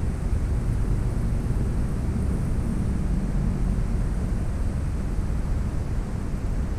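Steady low rumble of wind buffeting the camera microphone outdoors, with no distinct splashes or knocks standing out.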